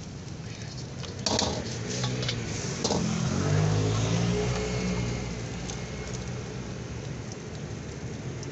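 A motor vehicle's engine passes close by, swelling and then fading over a few seconds. Before it, a metal ladle clinks sharply against a wok a few times while fried rice is scooped into a takeaway box.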